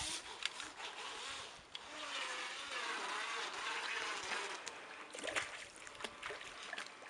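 Small battery-powered RC speedboat running across a swimming pool: its little electric motor and the hiss of its spray, rising and falling as it moves. A few sharp clicks about five seconds in.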